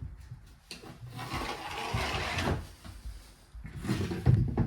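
Scraping and rubbing on a wooden floorboard as a level is lined up and a cut line is marked along it, lasting about two seconds, then a few low handling knocks near the end.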